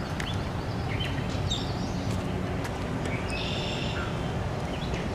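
Outdoor ambience: a steady low rumble with a few faint, short bird chirps and scattered light clicks.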